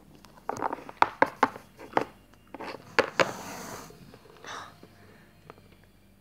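Plastic Littlest Pet Shop figurines knocked against a hard tabletop in a quick series of light taps, as the figures are hopped along, followed by a soft rustle about three seconds in.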